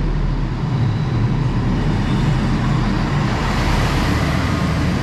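Transport for Wales diesel multiple unit running along the platform. Its diesel engines drone steadily under the broad rumble of its wheels on the rails.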